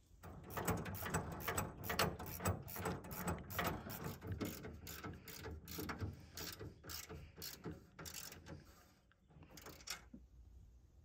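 Ratchet wrench clicking in quick, uneven runs while it tightens the nuts that hold a steering column drop bracket to the dash; the clicking dies away near the end.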